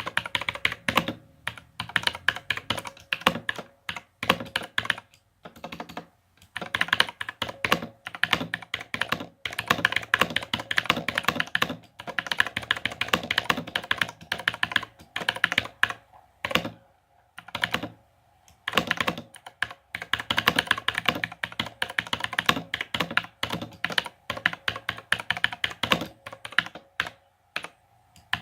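Typing on a mechanical keyboard with Outemu Blue clicky switches (a clone of Cherry MX Blue): rapid, uneven runs of sharp clicks as a sentence is typed, with short pauses between bursts.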